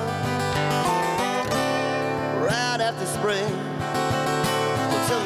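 Live acoustic duo performance: two acoustic guitars strummed and picked in a country-rock style, with a singing voice over them.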